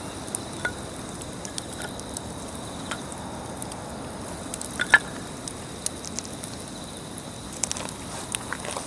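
Wood campfire crackling: a steady hiss with scattered sharp pops, one louder pop about five seconds in.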